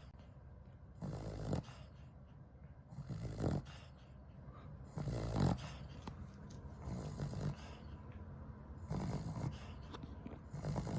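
A sleeping Cavalier King Charles Spaniel snoring heavily, about one snore every two seconds.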